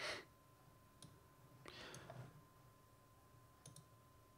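Near silence with a few faint clicks of a computer mouse, and a short soft rush of noise at the start.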